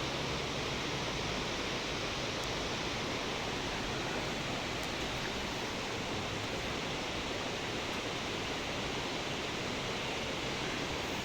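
Steady, even rushing of a waterfall and river.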